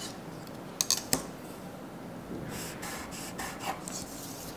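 Drafting tools handled on pattern paper: a plastic pattern ruler set down with a few sharp clicks about a second in, then two short stretches of pencil and ruler scratching and rubbing across the paper.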